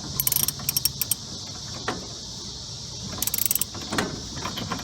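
Socket ratchet clicking in two quick runs of rapid clicks, over a steady high-pitched hiss.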